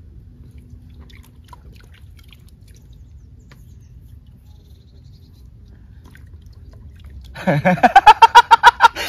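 A man bursts into loud laughter about seven seconds in: a quick run of pitched 'ha' pulses, about six a second, lasting nearly two seconds. Before it there is only faint, low background noise.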